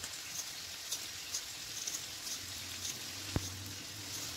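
Vegetables frying in oil in a kadai: a soft steady sizzle with scattered faint crackles, and one sharp click a little past three seconds in.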